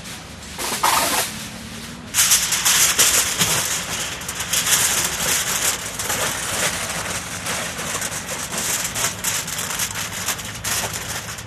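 Aluminium foil crinkling and rustling as it is spread and pressed over a whole hog on a smoker grate. There is a short rustle about a second in, then continuous crinkling from about two seconds in.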